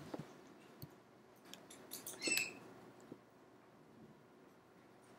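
A few faint clicks and light taps, with a brief squeak a little over two seconds in.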